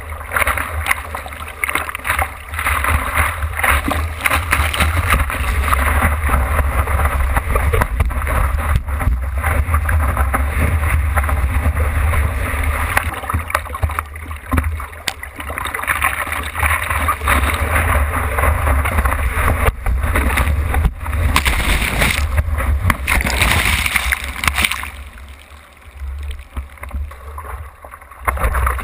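Seawater splashing and rushing against a longboard as the surfer paddles with his arms, heard from a camera mounted on the board's nose, with a deep rumble of water and wind on the mount. It goes quieter for a few seconds near the end.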